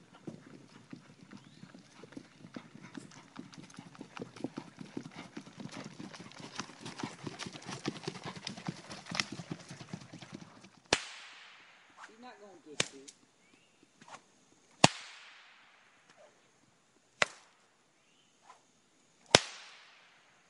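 Paso Fino horse's hooves beating rapidly and evenly on a sandy woodland trail. This gives way to a series of sharp cracks, each ringing off, about two seconds apart.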